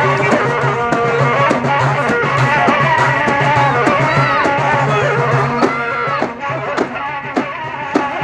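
Live North African folk music: a hand-held frame drum (bendir) beaten in frequent strokes under a pitched melody line. The music gets a little quieter in the last couple of seconds.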